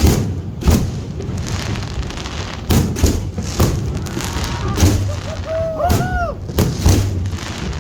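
Aerial fireworks shells bursting in an irregular run of about ten loud booms, each with a short ringing tail.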